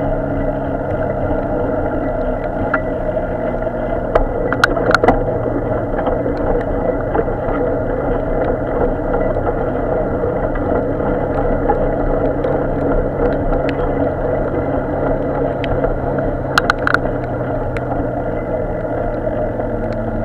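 Steady traffic noise from a queue of cars in a jam, engines running, with a steady low hum under the hiss of a wet road. A few short sharp clicks come about four to five seconds in and again about three seconds before the end.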